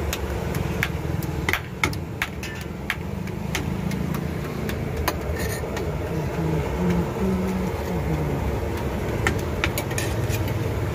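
Steel ladle clicking and clinking against a large steel serving pot as chhole is served, over a steady low engine rumble.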